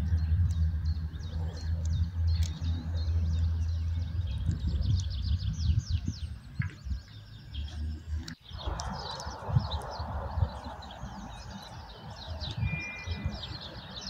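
Small birds chirping rapidly and repeatedly in the background, over a steady low hum that stops abruptly about eight seconds in, when the background sound changes.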